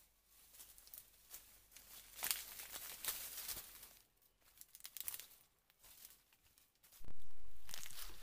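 Footsteps crunching and rustling through dry fallen bamboo leaves, irregular and scratchy. About seven seconds in, a sudden louder low rumble sets in and slowly fades.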